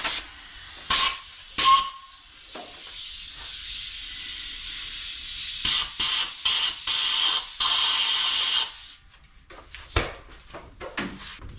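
Compressed-air blow gun blasting debris out of a head-bolt hole in the engine block. There are two short blasts, a steady hiss, then a string of quick blasts and a longer one. A few light clicks and a sharp knock follow.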